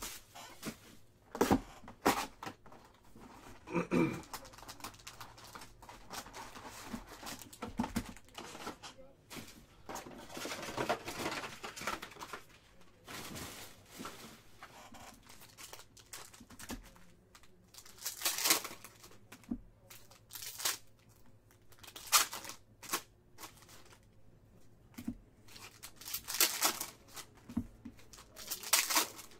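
Hobby box of 2022 Panini Certified football cards being opened by hand: cardboard and pack wrappers tearing and crinkling in short, irregular bursts, with cards shuffling.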